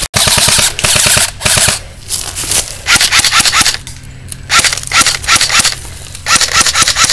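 Airsoft rifles firing full-auto: a fast, even rattle of shots coming in repeated bursts with short gaps between them.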